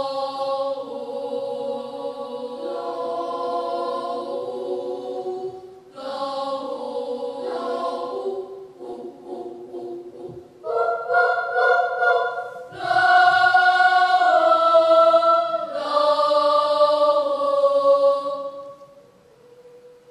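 Children's choir singing in several-part harmony, holding long chords in phrases. The phrases break off briefly about six and ten seconds in, the singing grows louder from about eleven seconds, and it dies away near the end.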